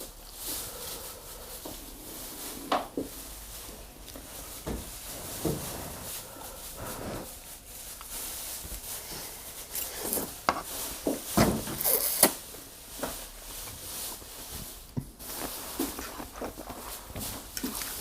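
Person eating seafood pasta close to the microphone: chewing and mouth smacks with irregular sharp clicks, busiest and loudest around ten to twelve seconds in.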